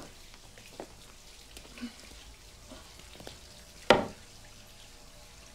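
Water dripping and splashing from an overflowing toilet in a tiled bathroom, a few scattered drips and clicks, with one sharp, louder knock about four seconds in.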